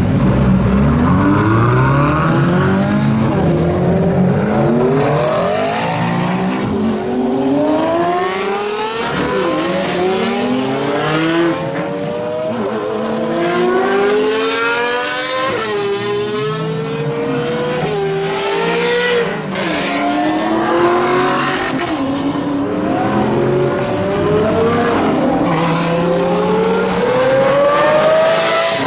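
Supercar engines pulling away one after another, each rising steeply in pitch through the gears and dropping back at every upshift, several cars overlapping.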